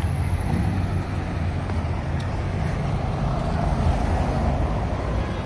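Steady road traffic, cars driving around a busy roundabout with their tyres rumbling over cobblestone paving. One car passes close by, swelling louder about four seconds in.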